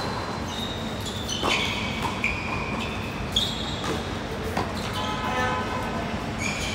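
Doubles tennis rally on a hard court: racquets striking the ball several times, with the ball bouncing and high shoe squeaks on the court in between.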